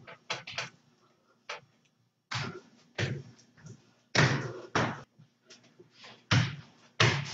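Irregular knocks and thumps, a dozen or so, from hands pressing and folding stromboli dough on a china plate.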